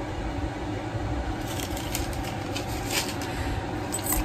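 Paper receipt being handled, with a few brief crinkles about a second and a half in, around three seconds in, and near the end, over a steady background hum.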